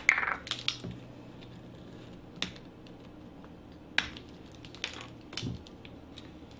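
Small sharp clicks and taps of a plastic measuring spoon and a spice jar as onion powder is opened and scooped out: a quick cluster at the start, then single clicks spaced a second or so apart, the loudest about four seconds in.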